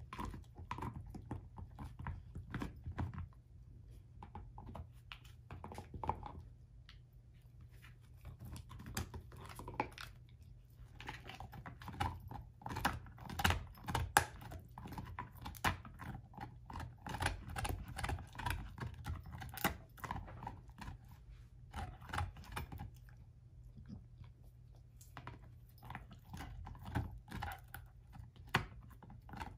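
German shorthaired pointer gnawing and chewing an air-dried whole pig foot: irregular crunches and wet chewing clicks as her teeth work at the hard hoof and skin. The chewing thins out for a few seconds early on and again later, and is thickest in the middle stretch.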